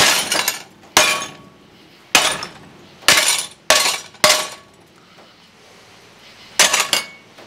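Red Mountain No. 8 cast iron skillet being banged down onto an already broken glass cooktop: sharp blows with a brief metallic ring, cracking and clattering the loose glass pieces. Six strikes come about a second apart, then after a pause two more in quick succession near the end.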